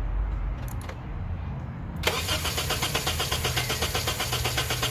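Honda Civic's R18 four-cylinder engine cranking on the starter. The rapid, even chugging starts suddenly about two seconds in and does not catch. This is a crank-no-start caused by antifreeze and water in the fuel tank.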